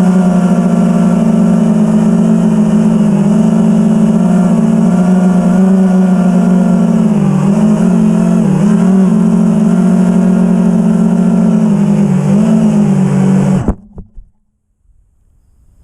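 Brushless motors and 5-inch props of a 6S FPV quadcopter (iFlight Xing-E 2207 1800kv motors), heard through the quad's own onboard GoPro as a loud, steady whine whose pitch wavers with the throttle. The whine cuts off suddenly near the end as the motors stop.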